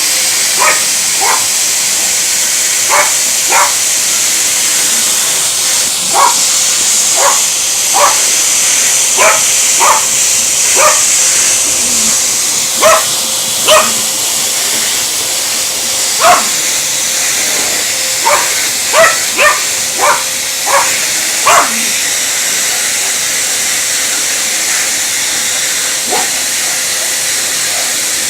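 A dog barking in short sharp barks, roughly one every second, some in quick runs and a pause of a few seconds near the end, at a running vacuum cleaner. The vacuum's steady motor hiss and hum carry on underneath.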